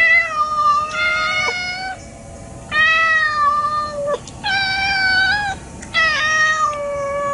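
Tabby kitten meowing repeatedly: about five long, drawn-out meows of a second or more each, with short gaps between them.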